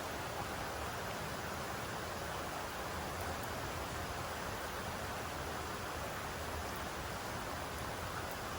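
Steady rain falling, an even hiss that doesn't change.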